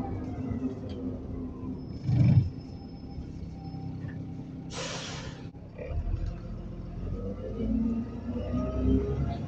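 Inside an Alexander Dennis Enviro400 (Trident 2) double-decker bus: a steady drivetrain rumble with a whine that falls as the bus slows. A low thump comes about two seconds in, then a short hiss of air from the air brakes near the middle. After that the engine note rises again as the bus pulls away.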